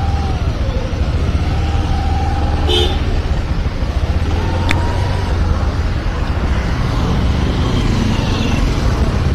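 Busy road traffic heard from a moving motorcycle: a steady low rumble with vehicle horns honking several times, the longest for over a second near the two-second mark.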